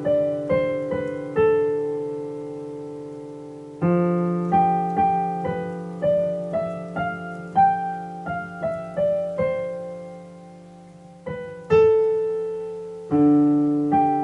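Piano playing a slow melody of single notes over held low chords, in phrases; the sound dies away before a new chord is struck about four seconds and again about twelve seconds in.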